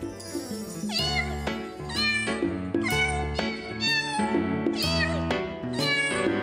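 Intro of a children's song about a cat: a bouncy backing track with a cat's meow dropped in on the beat about once a second, five meows in all.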